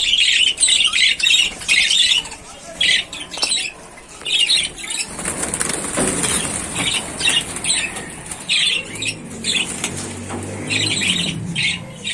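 A flock of budgerigars chattering in quick, repeated chirpy bursts, with wings flapping as birds flutter about.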